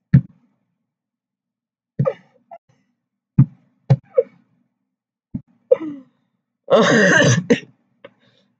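A girl laughing in short, stifled, cough-like bursts with silent gaps between, breaking into a louder, longer burst about seven seconds in.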